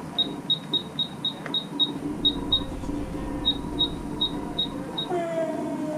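Electronic oven timer beeping as its button is pressed again and again to set a 20-minute cook time. It makes a quick run of short high beeps, about three a second, with a brief pause around three seconds in, and stops about five seconds in.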